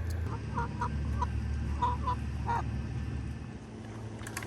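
Chickens clucking: about six short clucks in the first two and a half seconds, over a low rumble that stops about three and a half seconds in.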